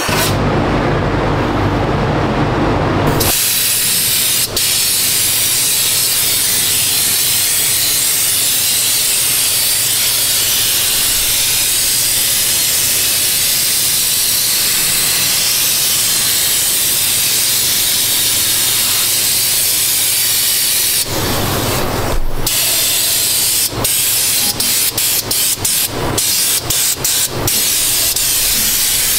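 Air-powered undercoating spray gun and wand hissing steadily as it sprays Fluid Film oil. Near the end the hiss breaks off again and again in short gaps as the trigger is let go and squeezed.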